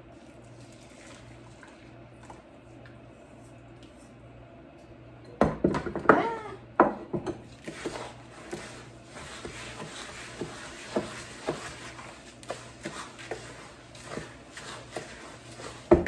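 A slotted wooden spatula stirring a thick mix of bird seed, peanut butter and lard in a plastic mixing bowl, giving repeated scrapes and clicks through the second half. About five and a half seconds in there is a short call whose pitch bends, the loudest sound in this stretch.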